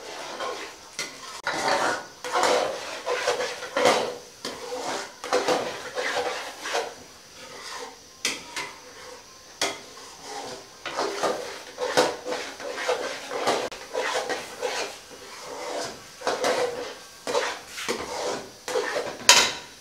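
Perforated metal spoon scraping and clinking against a metal pot while thick almond halwa is stirred: irregular strokes with a few sharp knocks, the loudest near the end.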